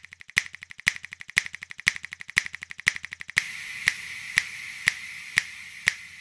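Rhythmic click-like percussion on a steady beat: a sharp snap-like click about twice a second with faint quick ticks between. A steady hiss joins about three and a half seconds in.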